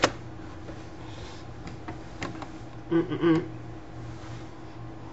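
A baby's short coo about three seconds in, over a low steady hum, with a few faint clicks of a computer keyboard's keys being hit.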